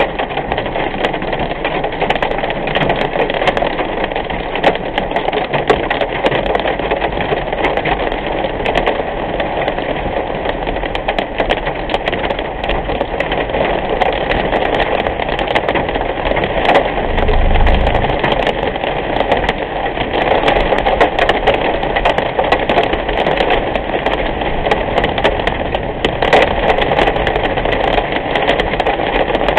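Heavy rain pelting a moving car's windshield and roof, heard from inside the cabin: a dense, steady hiss full of scattered sharp ticks from the drops, over the car's road and engine noise. A brief low rumble comes about 17 seconds in.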